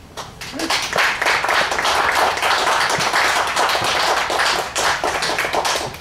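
Audience applauding: many hands clapping, building up within the first second and then keeping on at a steady level.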